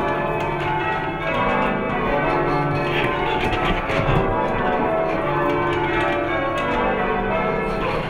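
Full-circle church tower bells rung by a band of ringers pulling ropes: the bells strike one after another in a steady, continuous sequence, each one's ring overlapping the next.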